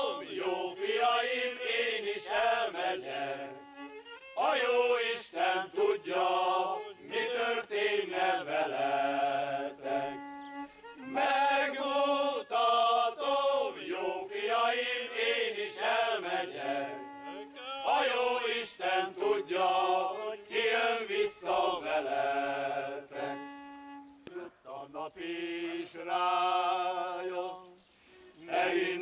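Small men's choir singing with a violin playing along, in phrases of about six or seven seconds with short breaks between them.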